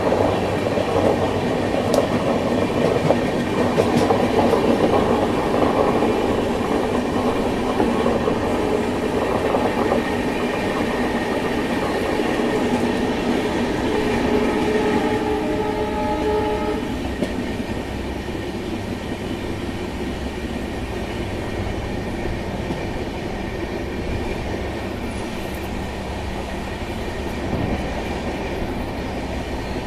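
Indian Railways LHB passenger coaches running at speed, heard from an open doorway: steady wheel rumble and clickety-clack over the rails. It is louder in the first half while running close alongside a line of freight wagons. A horn sounds for a couple of seconds about halfway through.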